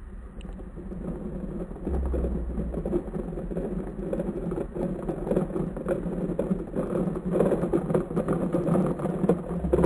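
Toy truck driving over asphalt and onto grass, its plastic body and wheels rattling continuously. Wind rumbles on the microphone, strongest about two seconds in and again near the end.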